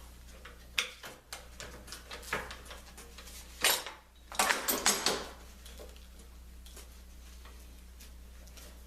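Workshop handling noises: scattered light knocks and clatters of tools and parts being moved on the bench. There are louder scraping clatters about three and a half seconds in and again around four and a half seconds in.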